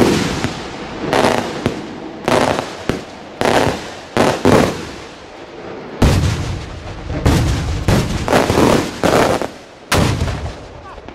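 Large cylinder fireworks shell going off as a multi-salute: more than a dozen loud, sharp bangs at uneven intervals, each trailing off in echo.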